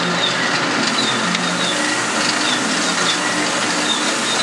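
Screw-press manure dewatering machine running steadily, its motor driving the screw as it presses water out of cow dung. A faint high chirp recurs about twice a second over the steady machine noise.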